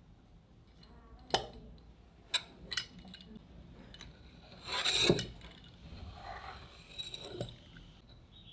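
A pizza cutter's steel wheel rolling through potato dough along a metal ruler on a wooden board, a rasping scrape about five seconds in that is the loudest sound. A few sharp clicks and taps come before it, with smaller rubs and clicks after.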